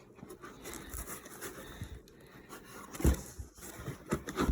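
Packaging being handled as parts are taken out of a 3D printer's shipping box: irregular rustling and scraping, with a sharp knock about three seconds in and another near the end.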